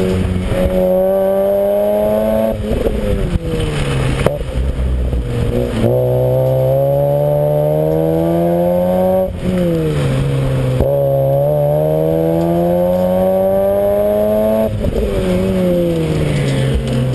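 2006 Mazda RX-8 rotary engine through a Greddy SP2 exhaust, pulling hard under full throttle: its pitch climbs steadily for several seconds, then falls away as the driver lifts off, about three times over.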